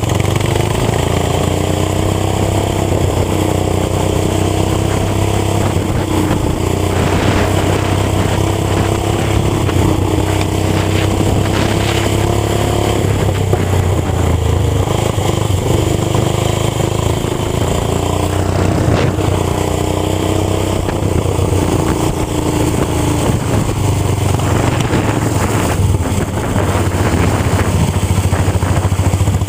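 Racing lawn tractor's small gasoline engine running hard and steady under load, its pitch drifting up and down gently as it is driven around the track.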